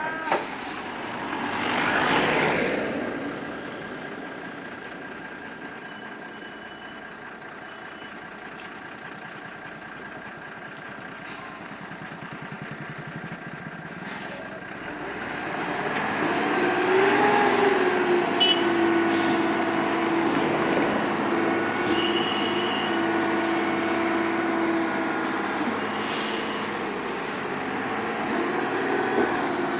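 Heavy diesel tipper trucks running. One vehicle swells past about two seconds in, and from about halfway through an engine runs louder at a steady pitch for several seconds.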